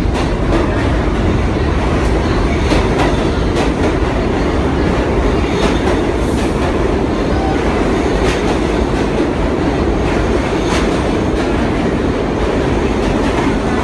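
R68A subway cars departing a station and passing close by: a loud, steady rumble of steel wheels on the rails, broken by repeated sharp clacks as the wheels cross rail joints.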